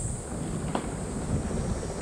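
Wind buffeting the microphone over a low outdoor rumble, with one light click about three-quarters of a second in.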